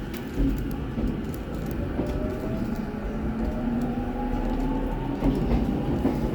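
Electric commuter train running, its rumble and wheel noise joined by a motor whine that slowly rises in pitch as it picks up speed.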